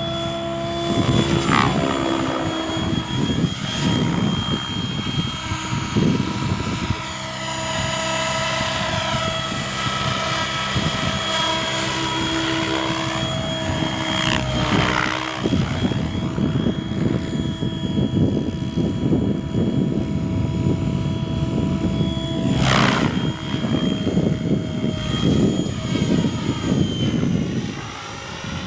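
Electric radio-controlled helicopter in flight: a steady whine from its brushless motor and rotor blades, with pitch sweeping up and down several times as it moves about and passes by, over a rushing of rotor wash.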